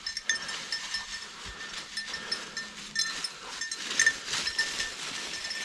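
A small bell on a hunting dog's collar tinkling in short, irregular jingles as the German Shorthaired Pointer pushes through thick briars, over faint rustling of brush.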